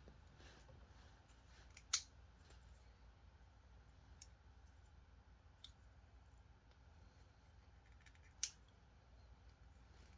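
Near silence broken by a few short, sharp clicks from handling the toy gun and its packaging, two louder ones about two seconds in and near the end.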